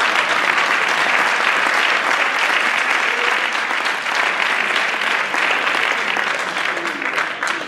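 Audience applauding steadily, tailing off near the end.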